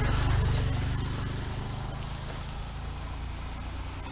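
Small pickup truck driving past, its engine running and tyres on wet road, loudest at first and then slowly fading away.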